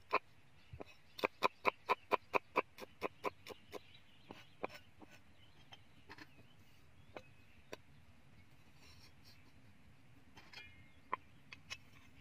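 Cleaver chopping garlic and red chillies on a thick wooden chopping block: a quick even run of about ten sharp knocks, roughly four a second, then a few scattered single knocks.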